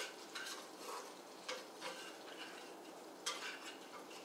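A spatula stirring sliced apples in a frying pan: several short scrapes and taps against the pan, the sharpest about three seconds in, over a faint sizzle of frying.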